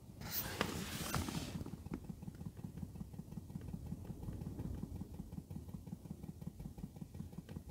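Chinese diesel heater fuel pump running in priming mode: a fast, even train of soft clicks as it fills the fuel line. The owner hears it getting quieter as the line fills. A rustle of the microphone being handled comes near the start.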